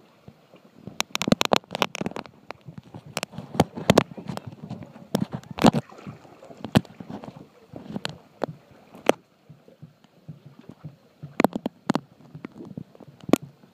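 Plastic kayaks on a river: water sloshing and gurgling against the hulls, broken by irregular sharp knocks and taps on the plastic.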